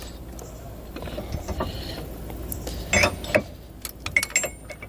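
Steel clinks and clanks as a tow bar arm and its attachment pin are fitted to a base plate's removable arm: scattered light knocks, with a few louder clanks about three seconds in.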